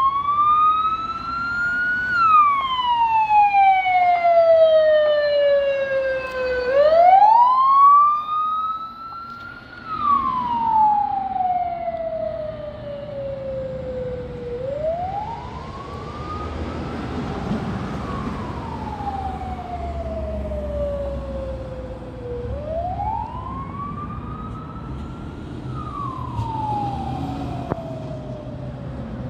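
Siren of a Renault Megane fire-service officer's car on an emergency run, wailing in slow cycles: about two seconds rising, then a long fall, repeating roughly every eight seconds. A rush of engine and road noise comes partway through as the car passes.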